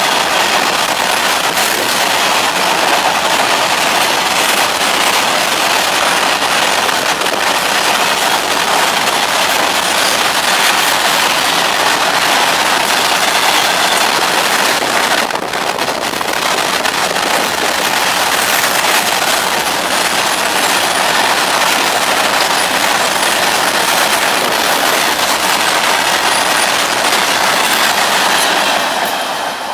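A long freight train passes at speed close by, with a steady loud rush of wheels on rail. The sound falls away near the end as the last wagons clear.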